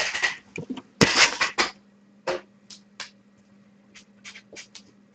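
Small hard objects handled on a tabletop: an irregular series of short clicks and scrapes, busiest near the start and about a second in, over a faint steady electrical hum.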